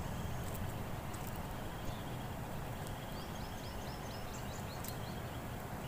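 Steady low outdoor background noise, with a small bird calling a quick series of about eight short, high notes about three seconds in.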